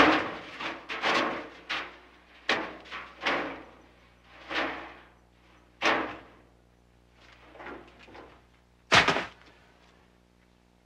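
A string of irregular knocks and clunks as a man rummages inside the drum of a front-loading washing machine. About nine seconds in comes a single sharp bang, the loudest sound, from a pyrotechnic flash that throws out smoke and sparks.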